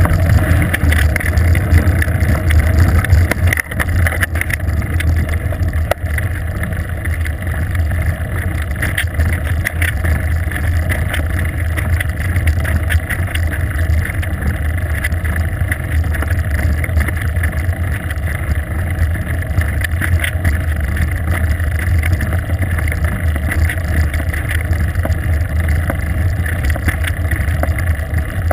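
Steady low wind rumble on a bicycle-mounted GoPro's microphone as the bike rolls along at speed, a little louder in the first few seconds.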